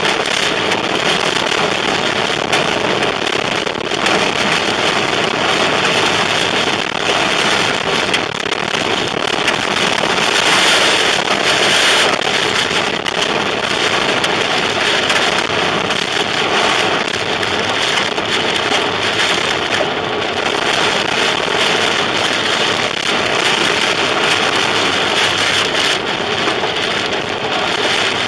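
Heavy wind-driven rain pelting a car, heard from inside, with a dense rattle of sharp impacts on the body and glass, in a tornado's rain-wrapped winds.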